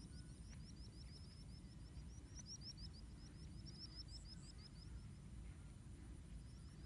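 Faint outdoor ambience at dusk: a rapid series of short, high chirps, about five or six a second, that stops about four and a half seconds in, over a faint steady high tone and low wind rumble.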